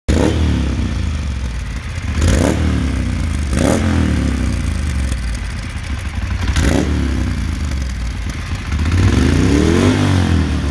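Moto Guzzi Stelvio 1200's transverse V-twin running at idle through a Mistral Exagon slip-on exhaust with its db-killer fitted, a deep exhaust note. The throttle is blipped three times in quick short revs, then held for a longer rev that rises and falls near the end.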